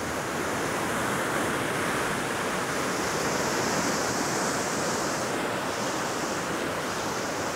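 Steady rush of a broad waterfall and the fast river water below it, an even noise that holds at one level throughout.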